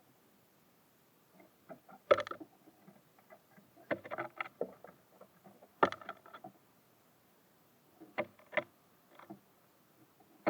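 Birds at a wooden feeder, making irregular knocks and taps as they land and peck; two louder knocks come about two and six seconds in.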